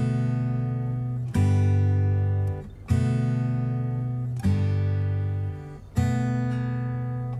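Background music: acoustic guitar strumming chords, a new chord struck about every second and a half and left to ring out.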